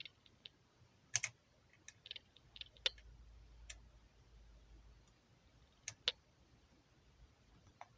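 Quiet, irregular sharp clicks and light knocks, about ten of them, from small parts of an airsoft rifle being handled. The loudest come about a second in, just before three seconds and around six seconds.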